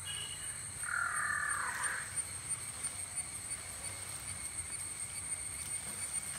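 A crow cawing: one harsh call lasting about a second, starting about a second in, over a steady high-pitched whine in the background.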